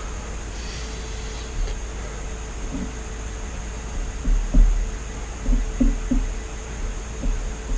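Steady fan-like background hum, with a series of soft, low thumps and knocks starting about three seconds in, the strongest in the middle.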